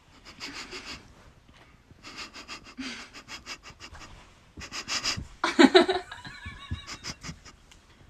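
Dogs sniffing and panting in quick bursts of short puffs, with a louder wavering whine about five and a half seconds in.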